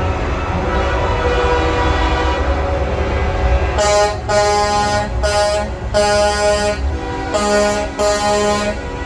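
Truck air horns sounding together in a chorus of steady tones. From about four seconds in, one nearby air horn sounds about six blasts in quick succession.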